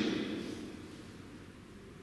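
A pause in speech: the last word's echo fades away over about a second in a large church, leaving a low steady room hum.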